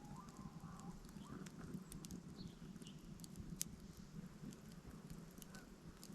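Faint outdoor ambience with sparse sharp crackles and ticks scattered irregularly, and a couple of brief faint chirps in the first half.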